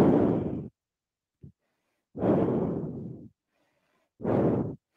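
A woman breathing out heavily three times, about two seconds apart, the middle breath the longest. These are long sighing exhalations as she recovers in child's pose after holding a plank.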